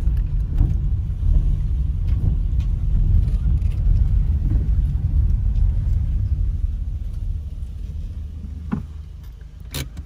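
Low rumble inside a car's cabin as it rolls slowly over stone paving, dying away as the car pulls up and stops. A couple of sharp clicks near the end.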